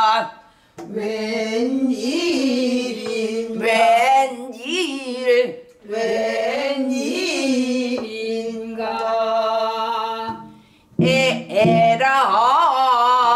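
A woman singing pansori in long, drawn-out phrases. Her held notes bend and waver with a wide vibrato, broken by short breaths about half a second, five and a half and ten and a half seconds in.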